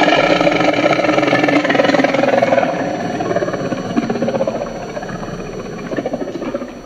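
Designed dragon roar sound effect: one long, rough roar that starts loud, then gradually weakens and trails off near the end.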